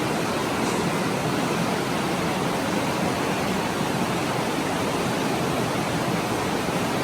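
Steady, even rushing of flowing water echoing in a limestone cave, with no breaks or distinct events.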